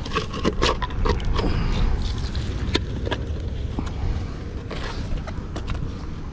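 Scattered metal clinks and knocks as a fishing magnet and its clip are handled and pulled free of a rusty, mud-caked metal find, over a steady low rumble.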